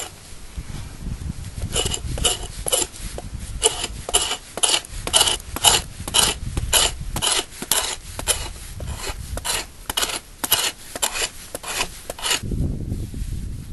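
Rhythmic hand scraping, about two quick rasping strokes a second, starting about two seconds in and stopping shortly before the end.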